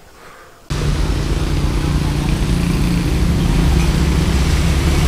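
Motorcycle engine running steadily, with a constant hiss over it; it starts abruptly under a second in.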